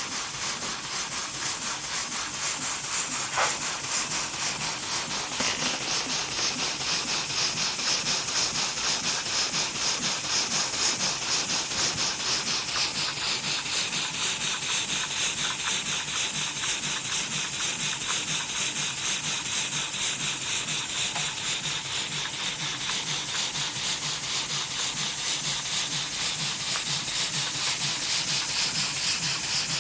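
Model horizontal double-acting steam engine running on about 2.5 psi of compressed air: a fast, even rhythm of exhaust puffs with a hiss.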